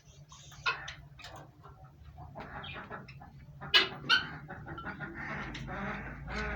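Green parrots calling: a run of short squawks and chatter. Two loud, sharp cries come about four seconds in, and the calling becomes denser toward the end.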